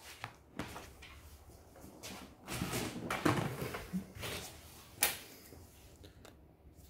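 Handling noise from a Samsung UE32ES6340 flat-screen TV being lifted and stood upright on its metal stand on a workbench: irregular knocks, scrapes and rustling, with a sharp knock about five seconds in.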